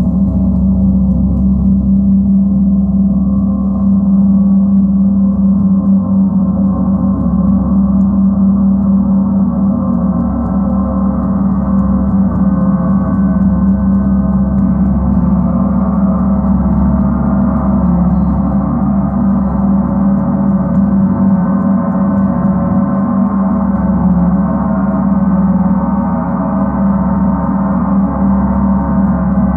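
A 38-inch Paiste Earth Year planet gong, tuned to C sharp (136.10 Hz), played continuously with soft felt mallets. It builds a loud, sustained wash of many overlapping ringing tones, with a steady hum strongest low down.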